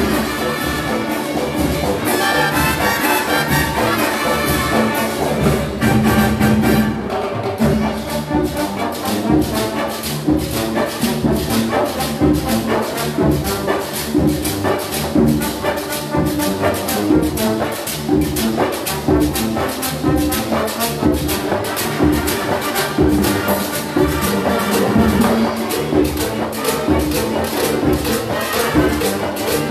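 Big band brass section playing Latin-style music over a steady, fast percussion beat.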